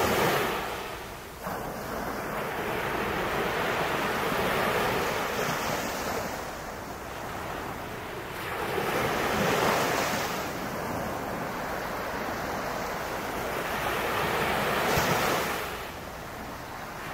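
Strong surf breaking on a sandy beach, the rush of the waves swelling and easing every few seconds, loudest about ten and fifteen seconds in.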